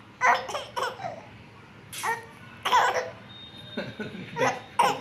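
Four-month-old baby laughing in several short, separate bursts, broken up by hiccups.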